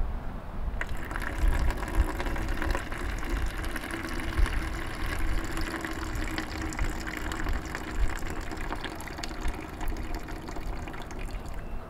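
Rinse water being poured from a glass beaker into a plastic bucket, a steady splashing pour that starts about a second in and tapers off near the end. This is decanting the wash water off a settled batch of cement silver powder.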